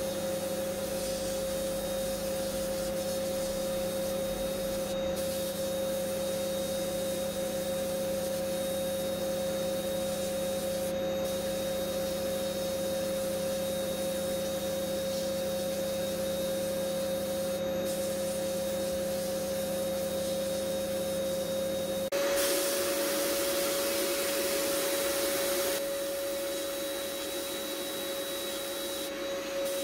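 Sandblasting cabinet at work on a metal revolver frame: a steady hiss of the abrasive blast gun over the constant hum of the cabinet's motor. About two-thirds through, the hum changes and the hiss gets louder and brighter for about four seconds, then eases again.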